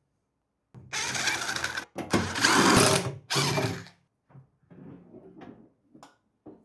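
Cordless power drill running in three short bursts, backing out the screws of a battery's sheet-metal cover, followed by quieter knocks and rustles as the cover is handled.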